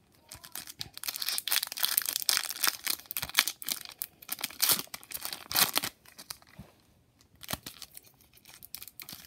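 Foil wrapper of a hockey card pack being torn and crinkled open by hand, a dense run of crackles for about six seconds, then sparser, quieter rustling. The pack is a struggle to tear open.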